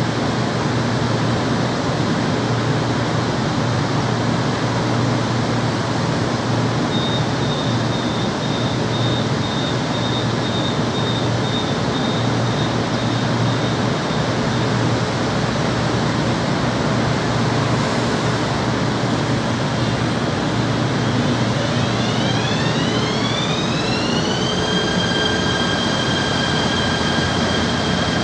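KTM Komuter electric train at a platform: a steady hum from the standing train, a run of short high beeps as the doors close, then the rising electric whine of the traction motors as it pulls away, levelling off near the end.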